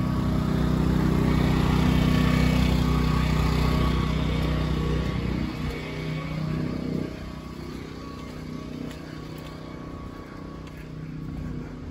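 A steady engine drone, loud at first, then fading away about six seconds in, leaving quieter street noise.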